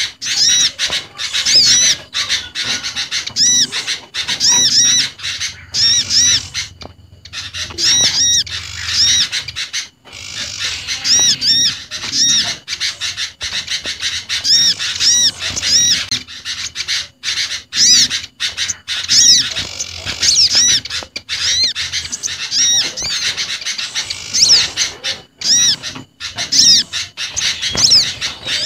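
Bird-luring recording of small garden songbirds calling together, a mix of sunbird, prinia and sooty-headed bulbul calls: rapid, high, repeated chirping notes layered over one another, with a brief break about seven seconds in.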